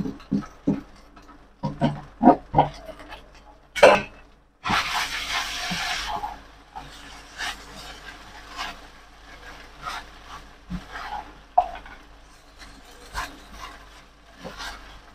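Spatula stirring and tossing steamed rice vermicelli in a pan: a run of short scrapes and taps, a sharp knock a little before four seconds in followed by a brief hiss, then lighter scattered scrapes against the pan.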